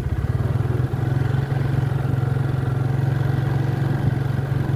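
Small motor vehicle's engine running at a low, steady speed as it rolls across a wooden-plank bridge, its note settling slightly about a second in.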